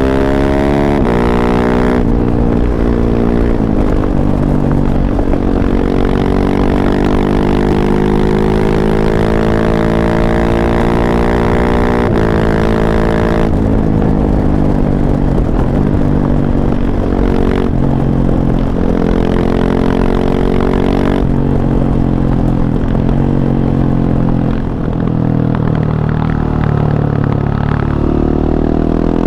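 2019 KTM 690 SMC-R's single-cylinder engine through an Arrow Race-tech exhaust, accelerating through the gears. The pitch climbs in each gear and drops sharply at each upshift, three times, then runs lower near the end.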